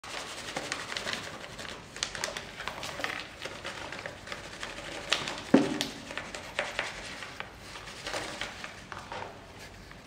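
Light scratching and tapping on a small cardboard box as a cat paws and noses at it, with one louder thump about five and a half seconds in.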